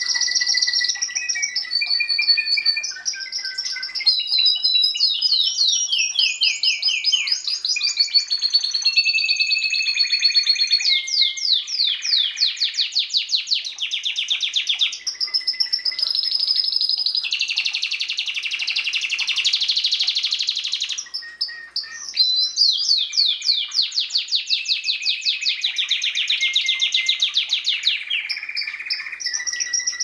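Domestic canary singing a long, unbroken song of fast rolling trills and held whistled notes, switching to a new trill every second or two.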